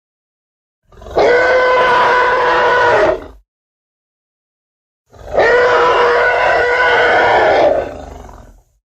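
Two stock dinosaur roar sound effects, each a sustained, steady-pitched roar lasting two to three seconds, separated by silence. The second is the longer and trails off at its end.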